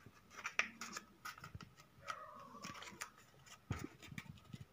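Sheet of thin craft paper being folded and pressed into creases by hand: faint, scattered crackles and rustles.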